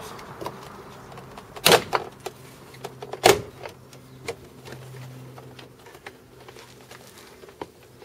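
Plastic retaining clips popping out as a Land Rover Freelander 2 front door card is prised off the door: two loud sharp snaps about a second and a half apart, with smaller clicks and knocks of the plastic panel around them.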